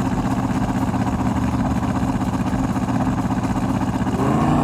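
V8 drag-car engine running steadily at a constant pitch, then rising in pitch near the end as it revs up.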